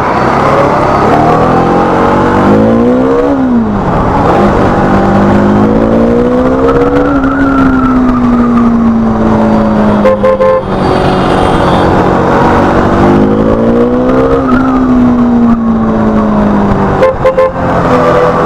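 Single-cylinder engine of a Bajaj Dominar 400 through a Leo Vince Cobra aftermarket exhaust, under way. It revs up, drops at a gear change about three seconds in, pulls up again, then eases off. The same rise and slow fall repeats near the end.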